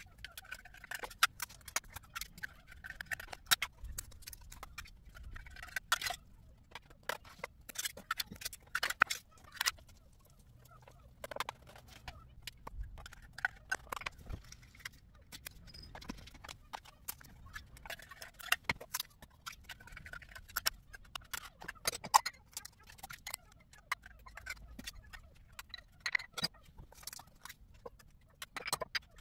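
Metal spoon clinking and scraping against opened tins of wet cat food and plastic plates as the food is scooped out and portioned: a rapid, irregular run of clicks and taps.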